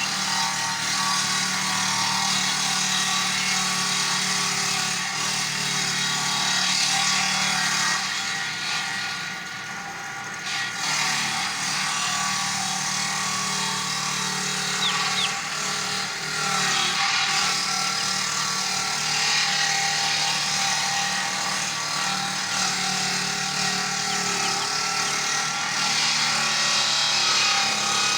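Chainsaw running and cutting wood. It eases off briefly about nine seconds in, then picks up again.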